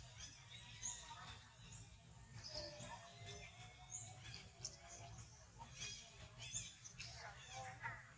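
Faint outdoor ambience: birds chirping in short, scattered calls over a steady low rumble.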